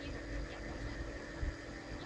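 Faint handling sounds of string being drawn and wrapped around a paper firework shell, with small clicks and a soft knock about one and a half seconds in, over a steady low hum.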